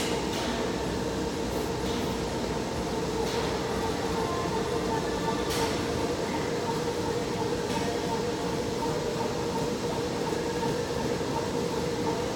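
Woodway slat-belt treadmill running at speed under a runner's strides: a steady mechanical rumble with a constant hum from the machine.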